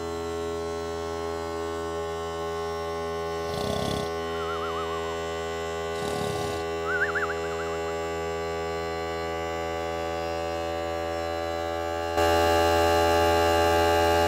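Ryobi P739 One+ cordless 1-gallon air compressor running steadily as it pumps its tank up to pressure: a steady hum that steps louder about twelve seconds in. Two brief warbling chirps sound over it about four and seven seconds in.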